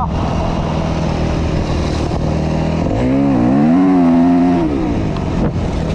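Yamaha YZ250F single-cylinder four-stroke dirt bike engine running steadily. About three seconds in it revs up for a second or so, then drops back to its earlier speed.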